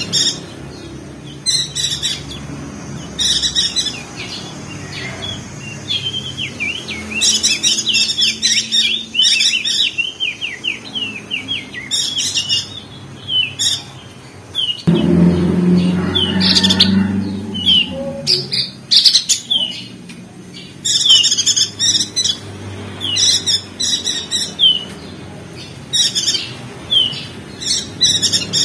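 Perenjak daun singing: fast, high twittering chirps in repeated short bursts. A low rumble starts about halfway through and lasts a few seconds.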